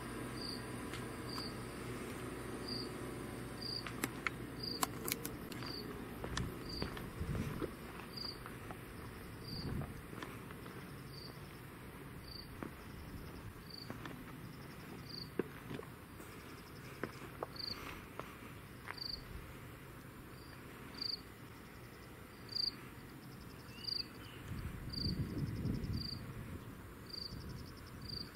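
Faint insect chirping: a short, high chirp repeating roughly once a second. A low rumble swells briefly near the end.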